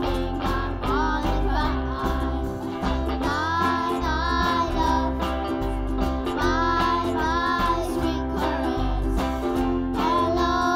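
Children singing a rock-and-roll cover song, with ukulele strumming and keyboard piano accompaniment over a steady bass line.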